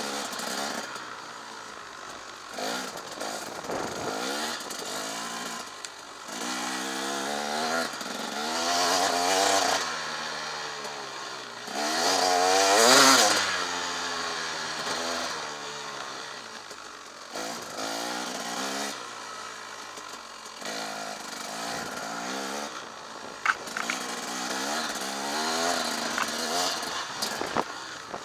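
Husaberg TE 300's single-cylinder two-stroke engine being ridden off-road, revving up and falling back again and again as the throttle is opened and closed, with the hardest rev about halfway through.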